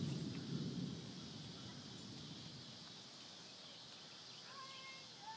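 Faint outdoor ambience: a low rumble that fades out in the first second, a steady high hiss, and a few short, wavering bird chirps near the end.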